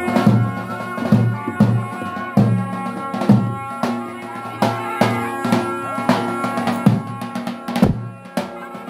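Live folk dance music: a wind instrument holding a melody over a large drum struck about twice a second.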